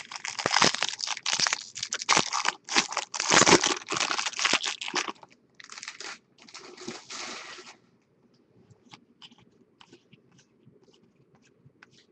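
Foil wrapper of a baseball card pack being torn open and crinkled: loud crackling for about five seconds, then softer crinkling, then faint light ticks as the cards are handled.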